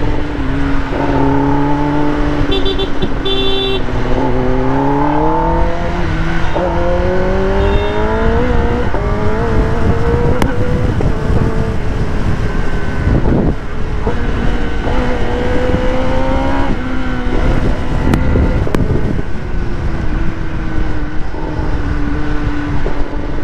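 Kawasaki ZX-10R's inline-four engine running while riding, with wind rush over the microphone. Its revs climb steadily for several seconds, ease off, climb again briefly, then hold steady near the end. A few short high beeps sound about three seconds in.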